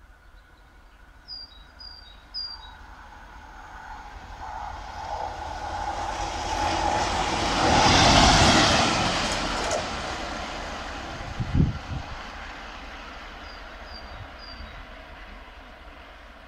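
Class 37 diesel-electric locomotive with an English Electric V12 engine approaching and passing close by, growing louder to a peak about halfway through, then fading as it goes away. A sharp thump comes a few seconds after it passes. Small birds chirp near the start and again near the end.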